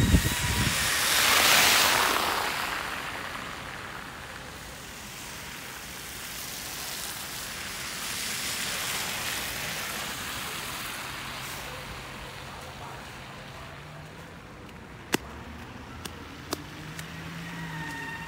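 City street traffic: vehicles passing with a rising and falling hiss, the loudest early on, then a low steady engine hum. A few sharp clicks come near the end.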